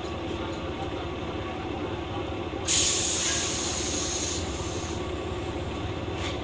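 KiHa 120 diesel railcar idling at a standstill, a steady low hum; about two and a half seconds in, a sudden loud hiss of compressed air being let out cuts in and fades away over about two seconds.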